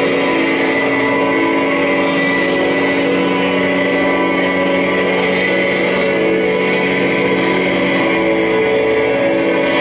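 Live band playing a loud, steady drone of sustained, layered electric guitar tones with no drumbeat.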